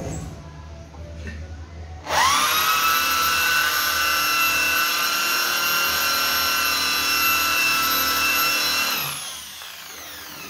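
Cordless drill motor spinning. Its whine rises quickly about two seconds in, holds at a steady speed for about seven seconds, then winds down near the end.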